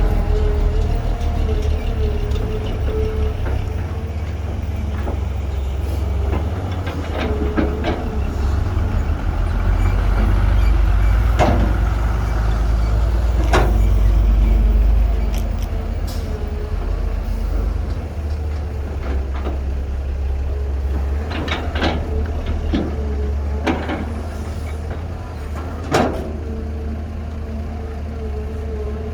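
Heavy diesel machinery, an excavator and a dump truck, running with a deep steady rumble and a wavering whine that comes and goes. Scattered sharp knocks and clanks sound throughout, the loudest about 26 seconds in.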